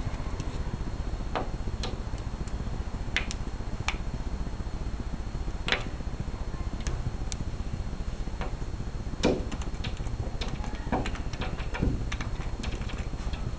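Irregular light clicks and taps, roughly one a second, from a cat at play, over a steady low background hum. The loudest tap comes about nine seconds in.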